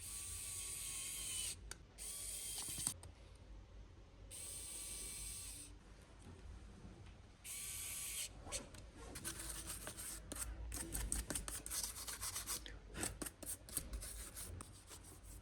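Four short bursts of air hissing, like a can of compressed air blown in spurts. About eight seconds in, these give way to a quick run of scratchy rubbing and scraping strokes, as of cleaning by hand.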